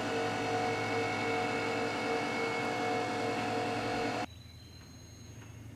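Wood-Mizer LT40 portable bandsaw mill running with a steady mechanical hum. The hum drops away abruptly about four seconds in, leaving a quieter low hum.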